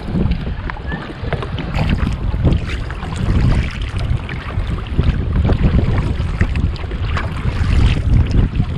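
Wind buffeting the microphone in a steady low rumble, with a kayak paddle dipping and splashing in the sea in scattered small splashes and drips.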